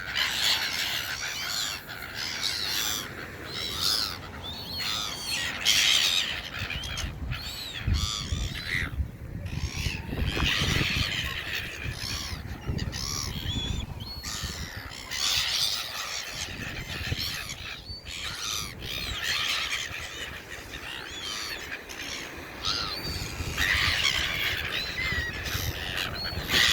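A flock of hungry birds squawking and calling over one another while being hand-fed, the calls coming in busy clusters.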